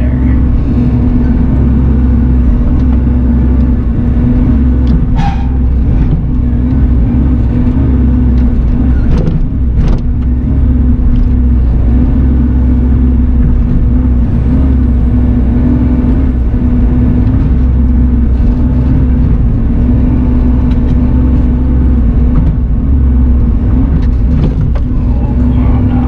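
Bobcat mini excavator's diesel engine running steadily under load, heard from inside the closed cab while the boom and bucket dig, with a few brief knocks about five and ten seconds in.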